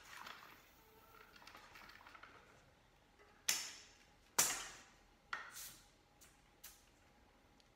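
Bicycle tyre bead being worked over the wheel rim by hand: faint rubbing and rustling, then about six sharp snaps from the middle on, the two loudest about a second apart.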